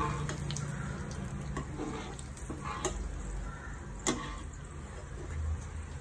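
Hot oil sizzling steadily in a pot as food deep-fries, with three sharp clicks of a utensil against the pot as it is stirred.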